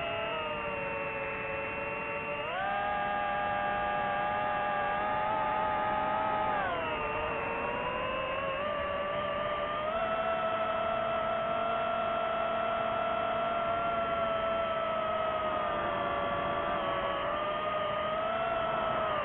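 DJI FPV drone's motors and propellers whining in several tones at once. The pitch steps up about two and a half seconds in, drops back around seven seconds, rises again around ten seconds and sags near the end as the throttle changes.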